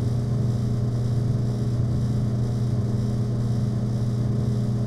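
Refrigerated drink vending machine humming: a steady, low electrical drone.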